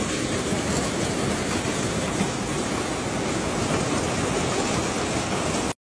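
Storm-force wind blowing with driving rain, a steady dense rushing roar buffeting the microphone. It drops out for an instant near the end.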